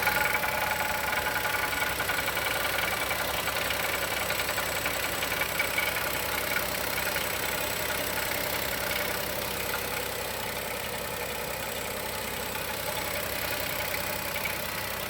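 Chevrolet Onix 2020 naturally aspirated engine idling just after a cold start, slowly getting a little quieter, with a knocking from the engine that the owner suspects is a valve lifter or a piston pin.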